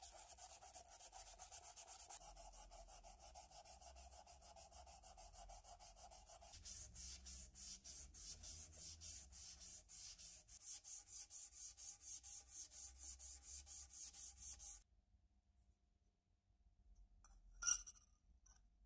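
Sandpaper rubbing on brass lamp parts in quick, even back-and-forth strokes, about four a second: first hand-sanding the lamp body, then, a few seconds in, a strip of abrasive pulled back and forth around a brass cup. The sanding stops suddenly about fifteen seconds in, and near the end there is one brief sharp knock as a brass part is handled.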